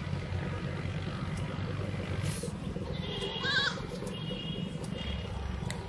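A short animal call with a wavering pitch about three and a half seconds in, over a steady low rumble.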